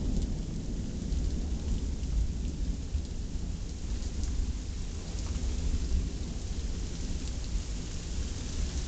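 Thunderstorm: steady rain falling, with a continuous low rumble of thunder underneath.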